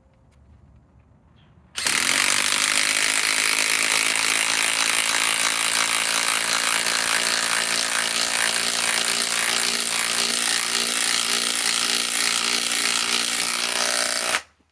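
DeWalt Atomic DCF921 compact cordless impact wrench driving a 5-inch lag screw into wood, running continuously for about twelve seconds. It starts suddenly about two seconds in and cuts off just before the end.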